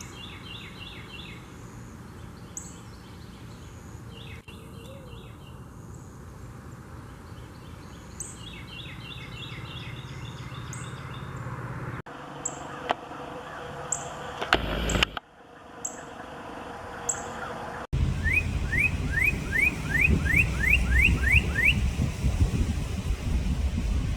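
Songbirds calling, northern cardinals among them: sharp high chip notes and repeated short trills, then, a few seconds from the end, a fast run of about ten rising whistled notes. A low rumble runs underneath and gets much louder for the last six seconds, with one brief loud burst of noise near the middle.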